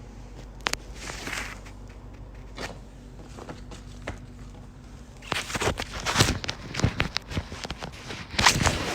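Scattered clicks and knocks with rustling, sparse at first and growing busier and louder about five seconds in.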